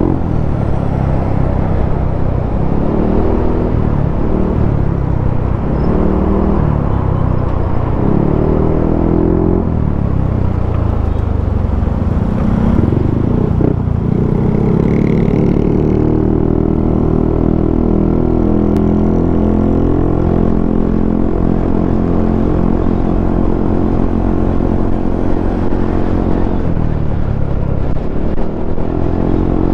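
Yamaha Aerox 155 scooter's single-cylinder engine under way. Its pitch rises and falls several times over the first ten seconds or so as the throttle is opened and eased, then holds steady at cruising speed, and climbs again near the end.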